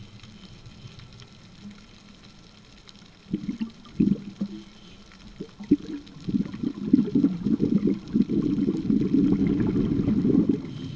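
Underwater sound through a camera housing: a faint steady low hum, then from about three seconds in, bursts of scuba exhaust bubbles that build into a long rush of bubbling from about six seconds in until just before the end.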